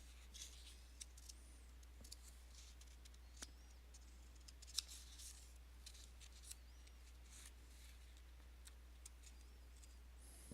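Near silence: room tone with a steady low hum and a few faint scattered clicks.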